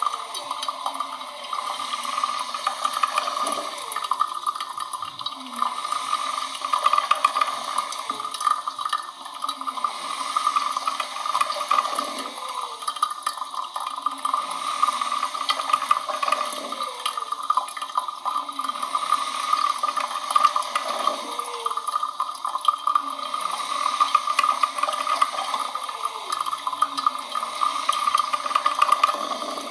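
Coffee machine running: a steady hiss with frequent short gurgling bubbles.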